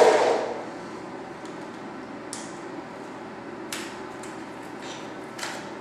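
A package being opened by hand: a loud knock fading out right at the start, then a few short, faint scratchy rustles of the packaging.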